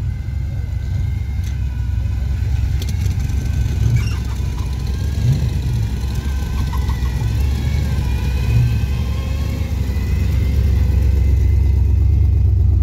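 Car engine idling with a deep, steady rumble that swells briefly a few times and grows louder near the end.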